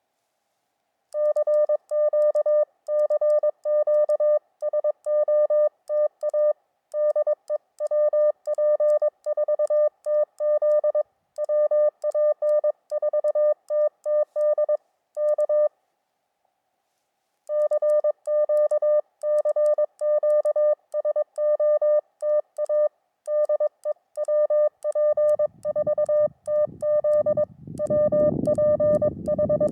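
Morse code on an amateur radio's CW sidetone: one steady pitched tone keyed on and off in rapid dots and dashes, with a brief break about halfway. A low rumble comes in near the end.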